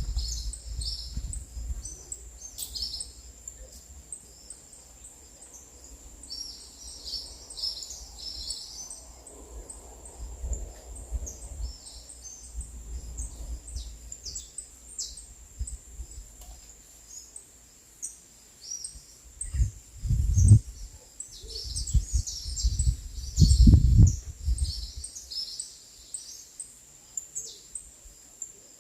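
Small songbirds chirping and singing in quick, high calls over a steady high-pitched whine. Low rumbling bursts twice in the second half, the loudest sounds.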